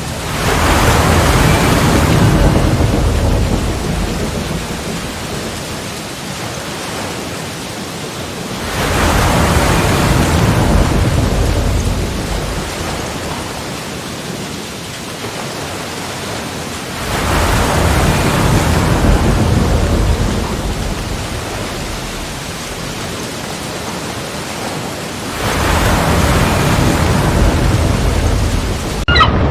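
Sea waves breaking against rocks, one about every eight seconds: each wave rises quickly to a loud rush and then washes back over several seconds.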